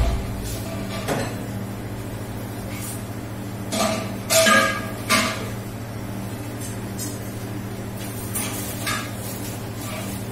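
Chopped garlic sizzling in hot oil in a stainless steel pot on a gas burner, over a steady low hum. A few short metallic clinks of steel cookware ring out about four to five seconds in, and fainter ones near the end.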